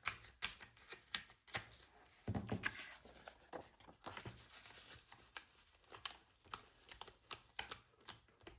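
Paper planner pages rustling and clicking as they are handled and fitted into a mini planner, a string of small, quick crinkles and snaps with a brief low sound a little over two seconds in.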